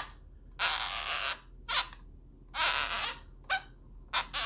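Marker pen drawing on an inflated latex balloon: about six squeaky strokes, two of them longer, near a second each, and the rest short.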